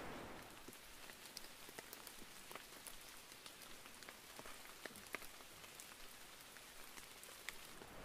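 Light rain: scattered drops ticking at irregular intervals over a faint hiss.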